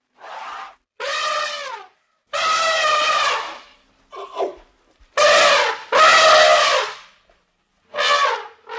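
An animal calling over and over: about seven loud, pitched calls, each up to about a second long, some with a wavering, quavering pitch.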